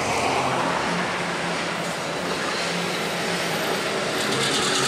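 Diesel locomotive leading a freight train passes directly underneath, its engine running steadily. About four seconds in, as it goes under, a rapid clatter of wheels on the rails joins in.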